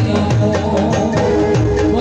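Folk music: hand drums keep a fast, steady beat under a held melody line.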